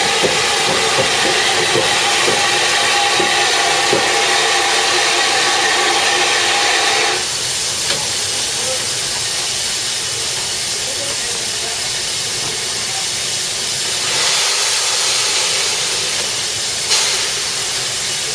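A WD Austerity 2-8-0 steam locomotive standing and hissing steam. For about the first seven seconds a steady pitched note sounds over the hiss, then cuts off suddenly. The hiss swells again later, with a short sharp burst near the end.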